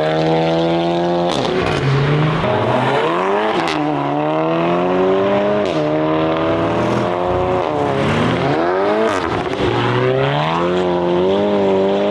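Volkswagen car engine and exhaust revving hard. The engine note climbs steadily, then drops sharply, about five times in a row.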